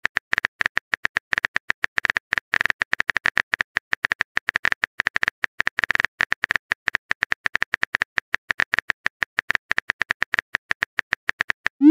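Texting-app keyboard typing sound effect: a rapid, uneven run of short taps, each with a faint tone, as a message is typed out letter by letter. A rising chirp of the message being sent starts right at the end.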